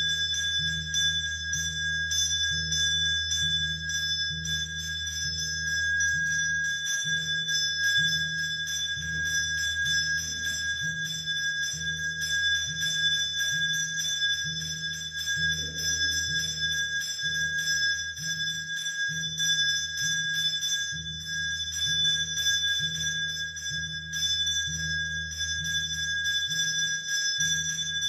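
Aarti bell rung continuously for the lamp-waving worship, a steady high ringing with a low beat about one and a half times a second underneath.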